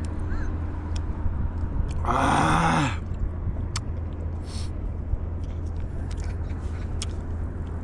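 A man's short, loud groan about two seconds in, over a steady low rumble, with a few faint clicks.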